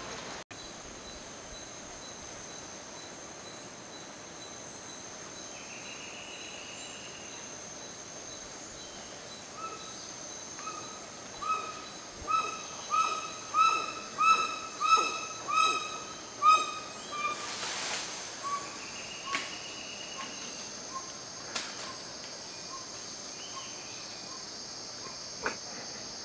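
Forest ambience with a steady high insect drone. About ten seconds in, an unseen animal gives a run of about a dozen loud calls, evenly repeated at roughly one and a half a second and growing louder. They then fade into a trail of softer notes.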